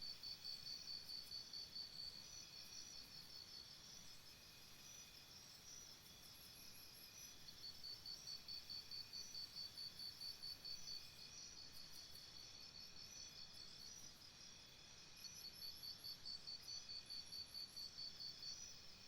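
Several insects chirping high and fast, the loudest in rapid pulsed trains of about four chirps a second that stop for a few seconds and start again, about a third and again near the end, over a softer steady chirring from others.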